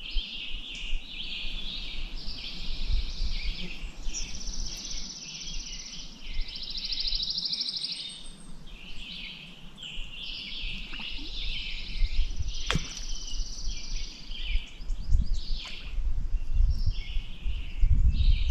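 Several songbirds singing at once, a continuous chorus of high chirps and fast trills. Under it runs a low rumble that grows stronger and gustier in the second half, and there is a single sharp click about two-thirds of the way through.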